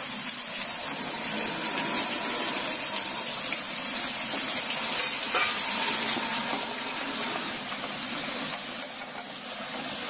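Sliced onions deep-frying in hot oil in a steel kadai, the oil sizzling and bubbling steadily.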